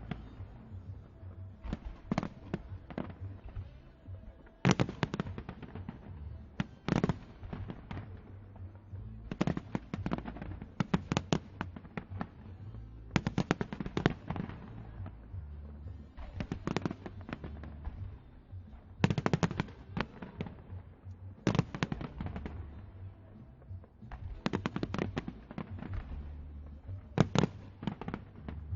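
Fireworks going off: volleys of sharp crackling bangs every two to three seconds, with a low rumble between them.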